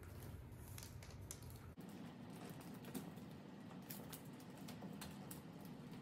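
Faint, scattered light taps and rustles of hands at work: toothpicks threaded with gumdrop candies being pressed into Twizzler strips on a paper-covered table.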